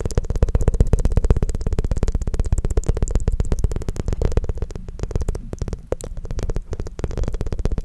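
Close-miked ASMR mouth sounds: a tongue fluttering rapidly, a fast, continuous run of wet clicks.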